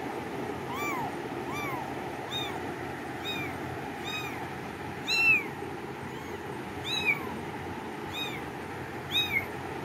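Kitten meowing over and over: short, high calls that rise and fall in pitch, a little more than one a second, the loudest about halfway through.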